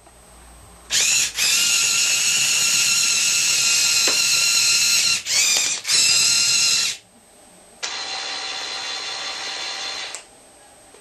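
Small electric motors and gearing of a LEGO Technic model whining: a loud run of about six seconds with a few short stops, then a quieter run of about two seconds.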